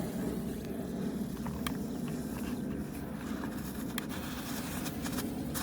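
A steady low rumble with a few faint, sharp pops scattered through it, from small thrown firecrackers going off.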